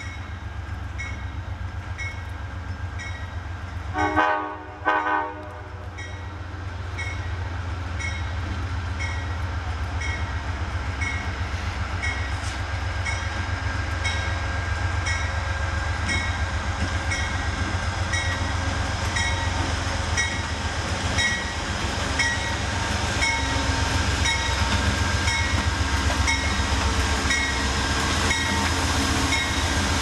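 An Amtrak GE P42DC diesel locomotive sounds two short blasts on its multi-chime air horn about four seconds in. Its engine and wheels then grow steadily louder as it approaches and passes, with a bell ringing steadily throughout.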